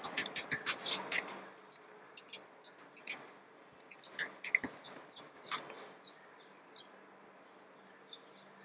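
Computer keyboard keys clicking as a password is typed, in quick irregular bursts through the first six seconds, then a few faint short ticks.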